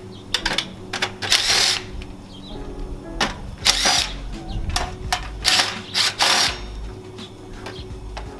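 Cordless drill run in short bursts, about five times, to back screws out of scrap HVAC equipment, with metallic clicks between the bursts.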